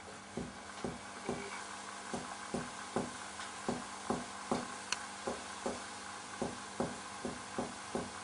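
Mediate finger-on-finger percussion of a chest wall: a steady series of short taps, about two to three a second. The examiner is working down the right midclavicular line from the clear lung note toward the dulled note over the liver, to find the height of the diaphragm.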